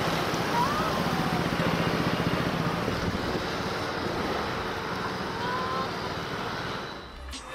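Steady road noise of motor-scooter traffic, with scooter engines running close by; it fades shortly before the end.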